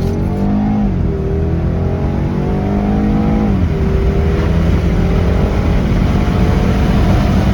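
BMW car engine under hard acceleration with traction control off, its pitch climbing through the gears. It drops sharply at two upshifts, about a second in and about three and a half seconds in, then rises steadily again.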